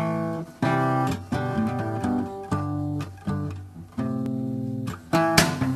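Background music: a guitar playing a run of plucked notes and chords.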